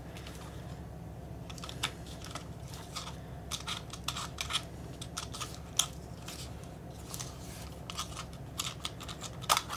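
Minolta XG-1 35mm film SLR body being handled and turned in the hands: scattered small clicks and taps of metal and plastic over a low steady hum, with a couple of louder clicks near the end.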